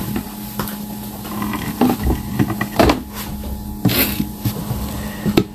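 Sewer inspection camera being pushed along inside the pipe: scattered knocks and scrapes as the camera head and push cable move, over a steady electrical hum.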